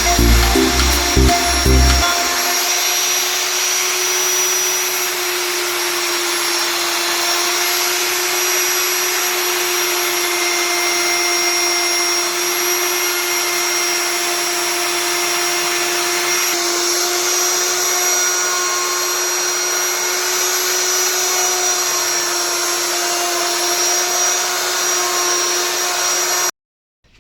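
Electric power tool motor running steadily at one constant whining pitch under a loud hiss, cutting off suddenly near the end.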